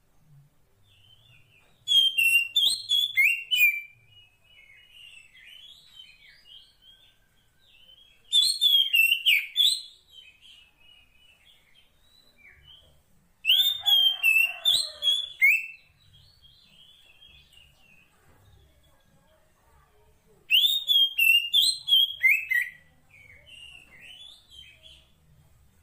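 Female Oriental magpie-robin (kacer poci) singing a call to draw a male. Four loud, rapid phrases of about two seconds each come several seconds apart, with softer twittering between them.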